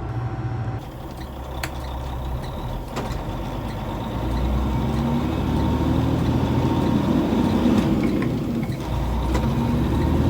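Truck engine running and pulling away, its pitch rising twice as it picks up speed, with a few sharp knocks.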